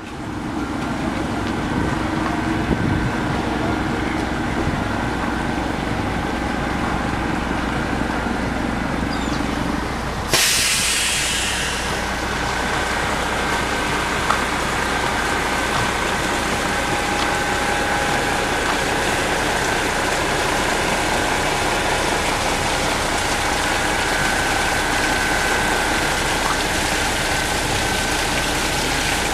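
A steady low hum, then, from about ten seconds in, a steady hiss of water falling from a rock fountain and splashing into its basin.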